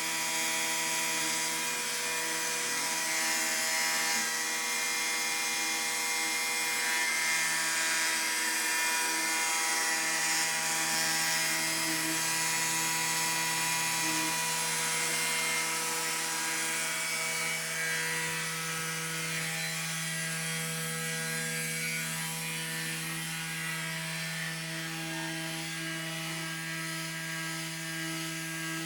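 Homemade CNC engraving machine running: its motors give a steady whine of several held tones over a hiss, the tones shifting slightly now and then.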